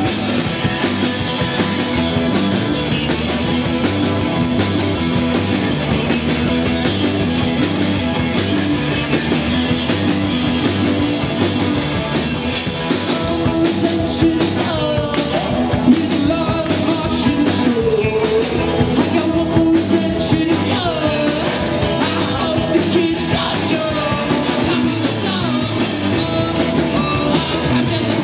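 Live rock band playing at full volume: electric guitar, electric bass and drum kit, with a singer's voice over the band, clearest in the second half.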